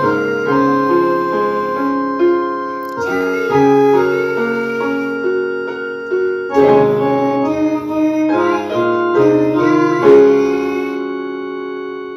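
Electronic keyboard played by hand: a melody over chords in short phrases, ending on the loudest chord about ten seconds in, which is held and fades away.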